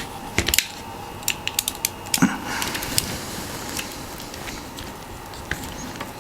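Small sharp clicks and scrapes of plastic and metal as a soldered switch is worked loose from a mechanical keyboard, in a quick cluster over the first three seconds, then sparser.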